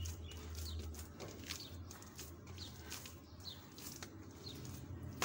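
Hands kneading soft dough in a steel bowl, faint squishing and patting, while a small bird chirps in the background with short falling chirps about once a second.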